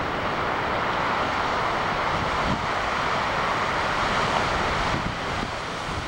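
Steady roar of big breaking waves and whitewater surf, with wind buffeting the microphone; it swells a little after the first second and eases near the end.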